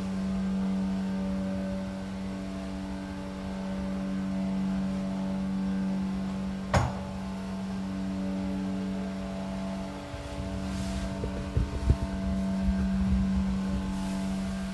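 KALEA hydraulic elevator running upward, its pump unit giving a steady hum heard from inside the small cab. There is a single sharp click about halfway through, and a few knocks and rattles a little later.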